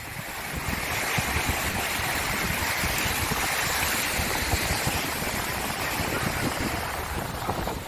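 Shallow sea surf washing in and foaming around the feet, a wave's hiss swelling up through the middle and easing off near the end, with wind buffeting the microphone in a low rumble.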